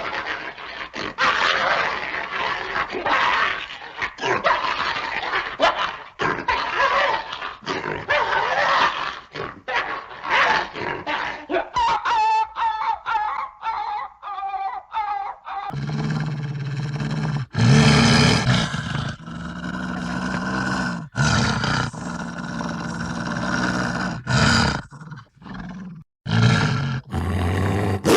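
Animal calls in two successive clips. First comes a run of short, rough barking-like calls with a falling whine about twelve seconds in. After a cut about halfway, deeper calls follow, like growls or grunts.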